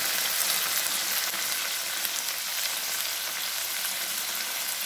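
Stir-fried baby squid in sauce sizzling in a frying pan over the heat: a steady hiss with fine crackles.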